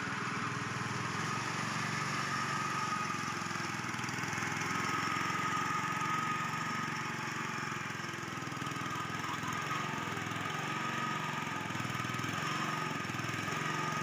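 Small engine of a BRRI hydrotiller paddy tiller running steadily, with a constant whine over its low beat.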